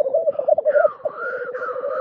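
Male black grouse rookooing: a continuous, rapidly pulsing bubbling coo, with a higher drawn-out note rising over it twice in the second half.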